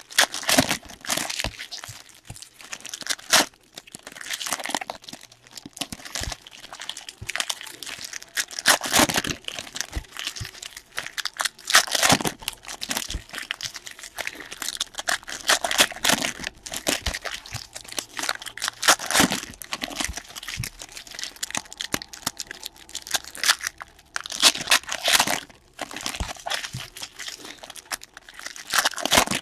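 Trading-card packaging being torn open and crinkled by hand, in irregular rustling bursts throughout.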